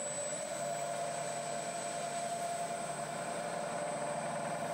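Bridgeport milling machine spindle running steadily with a drill chuck and 5 mm drill bit, a steady motor hum with a high-pitched whine over it, as the bit comes down to start a pilot hole in an aluminium collar.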